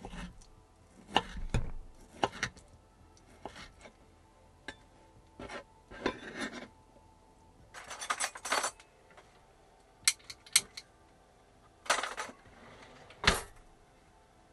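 Kitchen handling sounds: a knife cutting on a board, then a drawer being rummaged, with utensils and pots clinking and knocking. Separate knocks and short scraping rattles, the loudest knocks near the end.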